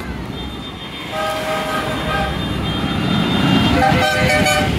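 Tractor horns tooting: a few short toots starting about a second in, then a second, lower-pitched horn near the end. Under them is the low rumble of an approaching tractor engine, growing louder.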